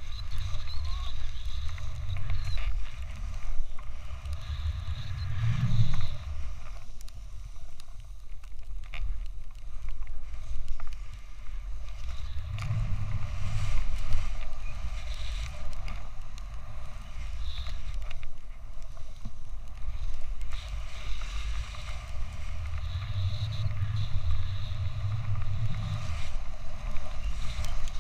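Wind buffeting an action camera's microphone as a snowboard rides through deep powder, with a low rushing rumble that swells and eases with each turn and a fainter hiss of the board through the snow.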